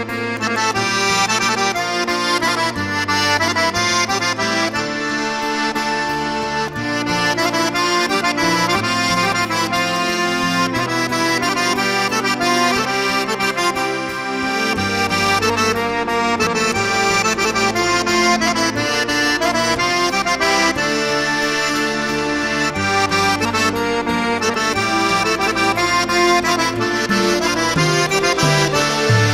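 Instrumental background music: sustained chords over a bass line that changes every second or two.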